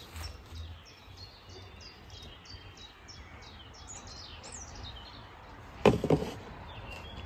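Songbird singing: short high falling notes repeated about twice a second, then a quicker run of notes. A single loud knock with a brief clatter comes about six seconds in.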